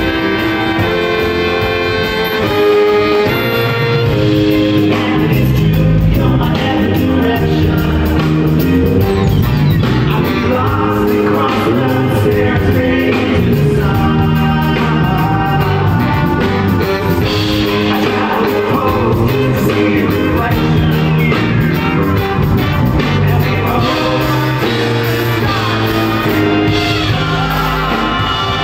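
Live band playing loudly: trombone and baritone saxophone over drums and keyboards.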